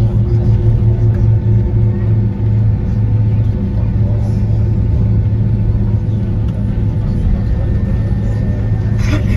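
Cabin sound of a Boeing 767-300ER taxiing: a steady low rumble with the even hum of its General Electric CF6 engines at taxi power. There is a brief knock near the end.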